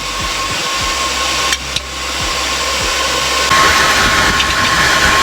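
Forge air blower running steadily with a thin whine, growing louder and hissier about three and a half seconds in.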